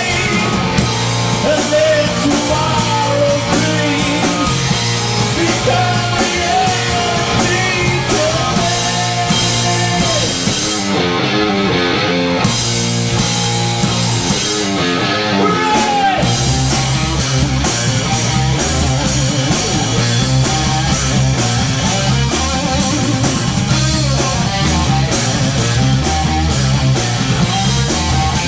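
Live rock band playing loud: electric guitar and drum kit with a male singer over roughly the first ten seconds. The cymbals drop out for a few seconds in a guitar passage, then the full band comes back in with a heavier low end.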